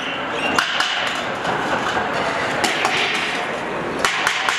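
Irregular sharp knocks and clatter, like metal or wood being struck, over a steady busy din.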